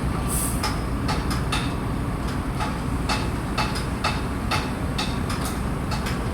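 A heavy engine running steadily, with irregular sharp metallic clinks a few times a second.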